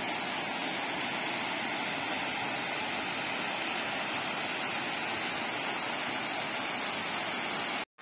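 Small waterfall pouring over rock into a pool: a steady rush of falling water that cuts off abruptly just before the end.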